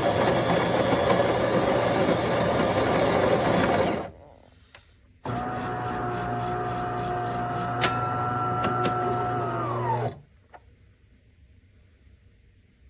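Fully automatic espresso machine at work: the built-in grinder runs for about four seconds, then after a short pause the pump runs steadily with a low hum and a steady whine for about five seconds before cutting off.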